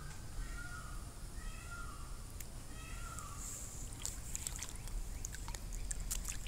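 White tiger cub giving a series of short, high mews about a second apart, then pawing at pool water with small splashes from about four seconds in.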